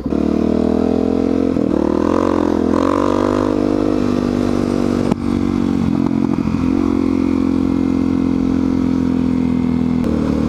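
Dirt bike engine accelerating hard as the rider shifts up through the gears: the revs climb and drop several times in the first five seconds, then settle into a steady cruise and rise again near the end.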